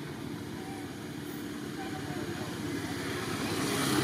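Low, steady engine rumble, like a vehicle running, growing louder near the end.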